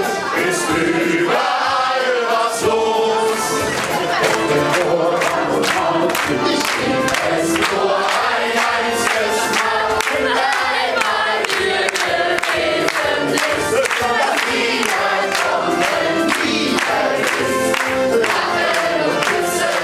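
A group of people singing a carnival song together over music with a steady beat.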